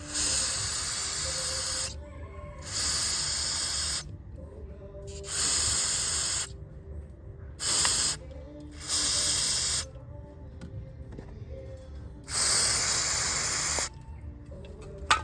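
Aerosol cleaner spraying in six short bursts of hiss, each lasting up to about two seconds, used to clean the crankshaft position sensor. A sharp click comes near the end.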